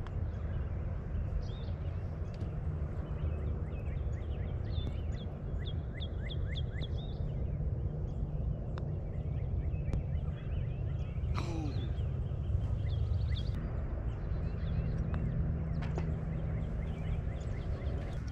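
Outdoor ambience on a golf course: a steady low rumble with birds calling over it, a run of quick repeated chirps a few seconds in and scattered single calls later.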